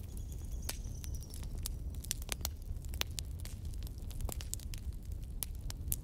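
Wood fire burning in a fireplace: logs crackling with irregular sharp pops over a low, steady rumble of flame. A faint high whistle sounds for about a second near the start.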